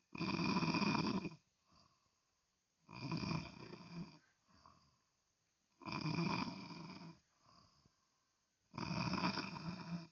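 Loud snoring: four heavy, rasping snores on the in-breath, each lasting over a second and coming about every three seconds, with fainter breaths between them.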